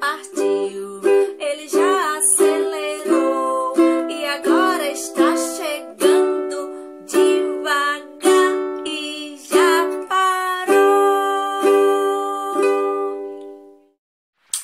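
Ukulele strummed in steady chords under a singing voice; the strumming slows, settles on a held chord that fades out, and a short click follows near the end.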